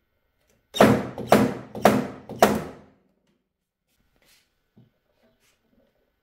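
Steel Monk SMYK glue-pulling slide hammer with a 330 g slide, jerked four times in quick succession, about two a second. Each time the sliding weight slams against its stop with a sharp clack and a short ring, pulling on a glued tab to lift a dent in a car fender.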